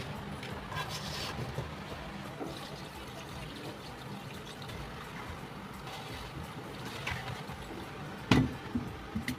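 Liquid pouring and trickling steadily, with a sharp knock about eight seconds in.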